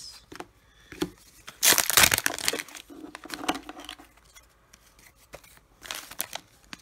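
Trading-card pack wrapper crinkling and rustling as it is handled, loudest in a burst about two seconds in and again shortly before the end, with small clicks and taps of cards between.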